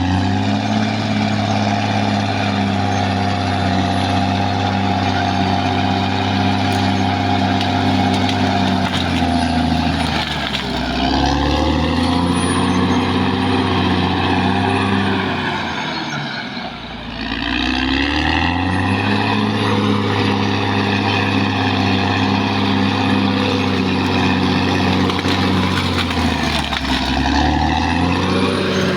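Caterpillar D6R XL bulldozer's diesel engine working hard at high revs, its note sagging and picking up again three times.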